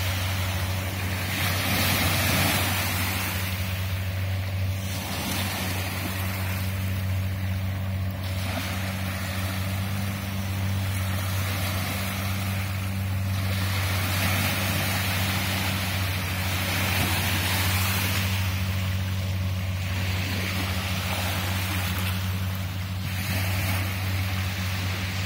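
Small waves of the Andaman Sea lapping and washing up onto a sandy beach, a fresh wash of surf about every five seconds, over a steady low hum.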